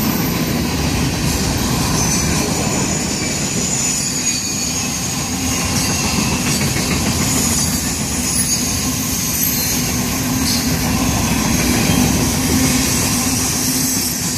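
Freight train cars rolling past close by: a steady rumble and clatter of steel wheels on the rails, with thin high squeals from the wheels coming and going.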